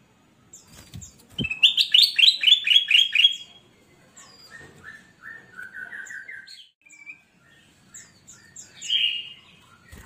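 Ruby-throated bulbul (kutilang emas) singing: a loud, fast run of about ten notes falling slightly in pitch, then a quieter series of rising notes and a short call near the end. Two low thumps come just before the first run.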